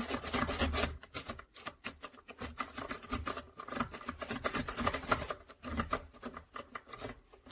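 A rake pick scraping in and out of a Master Lock padlock's keyway, giving a dense run of small metallic clicks and rasps as the pins are raked. This rake does not open the lock.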